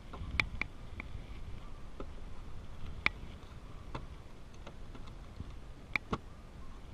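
Wooden beehive boxes and frames knocking and clicking as they are handled and fitted together: irregular sharp clicks, the sharpest about three seconds in and a close pair near the end.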